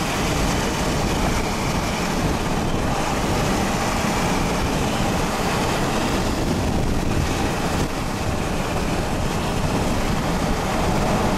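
Steady rushing wind and road noise of a moving vehicle, with wind buffeting the microphone.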